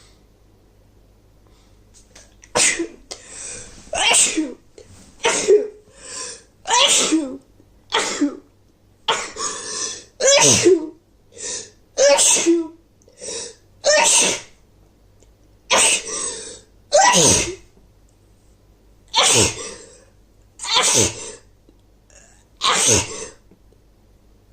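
A woman's rapid sneezing fit, a long run of wet sneezes in quick succession, brought on by a head cold.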